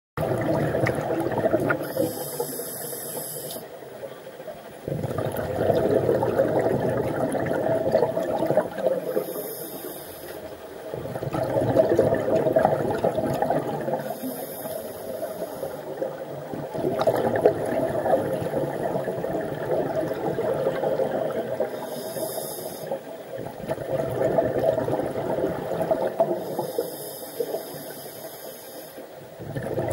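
Scuba diver breathing through a regulator, recorded underwater inside a camera housing: a short hissing inhale every five to seven seconds, each followed by several seconds of rushing, bubbling exhaust.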